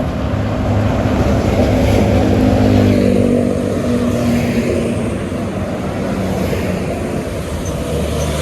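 Large tour bus's diesel engine passing close by, the sound swelling to a peak about three seconds in and then easing off as it moves away.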